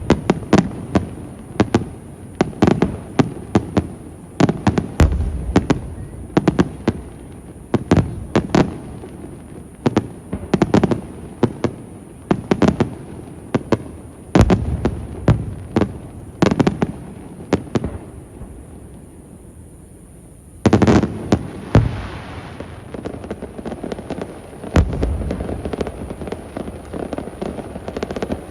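Fireworks display: aerial shells bursting in quick succession, with sharp bangs every second or so. About two-thirds of the way through there is a short lull, then a loud burst and a run of quicker, fainter pops.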